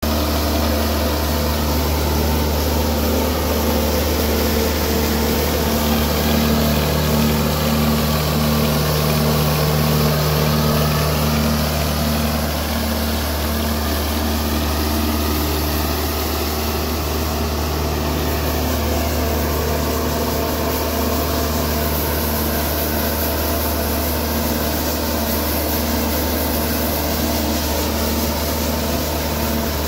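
Elgin Pelican street sweeper running steadily on its John Deere 4039 four-cylinder turbo-diesel engine, with its rotating brushes scrubbing concrete. The sound gets slightly louder a few seconds in, then settles.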